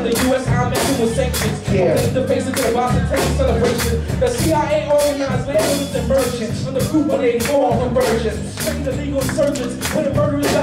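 Live band playing a steady groove, with drum kit hits keeping an even beat over low bass-guitar notes.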